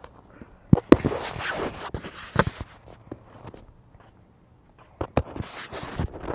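Scuffing and sharp knocks of a handheld camera being moved and rubbed close to the pavement, in two bursts: one about a second in, another about five seconds in.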